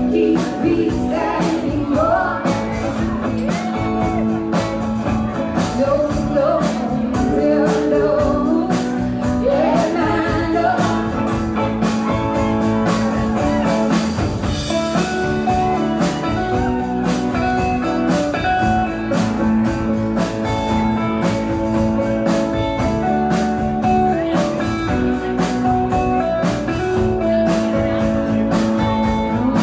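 Live band performance: a woman sings lead over strummed acoustic guitar and band for roughly the first ten seconds, then the song goes into an instrumental stretch of guitars over a steady beat.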